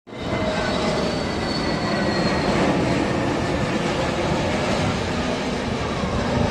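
Airbus A321neo airliner's jet engines heard on its landing pass: loud, steady engine noise with a faint high whine that slides slightly lower.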